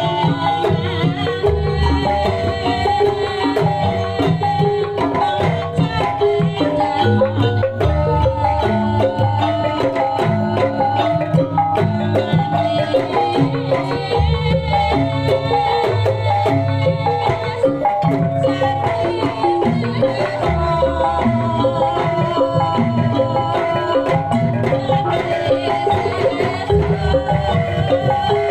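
Kuda lumping gamelan music: kendang hand drums and pitched metal percussion playing a fast, repeating folk pattern without a break.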